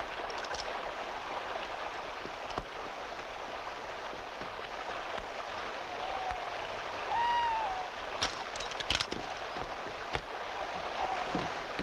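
Steady rush of a flowing stream. About halfway through a short, wavering call rises and falls, followed by a few sharp clicks, and another such call sounds near the end.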